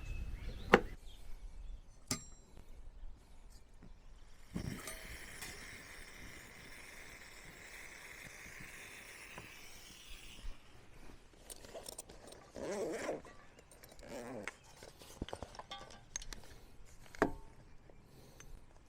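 Camp cooking handling sounds: sharp clicks and clinks of utensils and gear, with a steady hiss for about six seconds in the middle.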